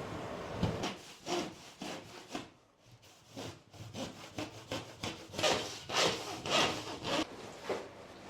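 Handsaw cutting with back-and-forth strokes. After a short lull early on, the strokes become louder and more even, at about two a second.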